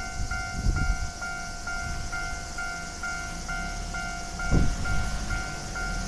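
Japanese level-crossing warning bell ringing its steady repeating clang, about two strokes a second, while a Keio Line electric train rumbles past with two heavy thumps, about a second in and again near four and a half seconds.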